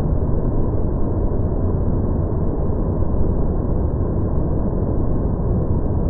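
Fukuroda Falls pouring in heavy rainy-season flow, heard as a loud, steady rush of water. The footage is slowed down, so the rush comes out as a deep rumble with nothing high above it.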